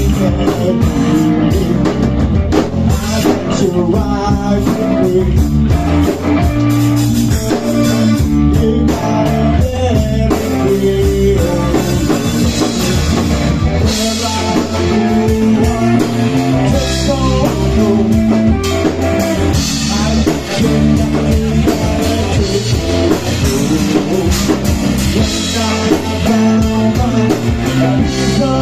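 A rock band playing live: electric guitars and a drum kit, with a singer on vocals.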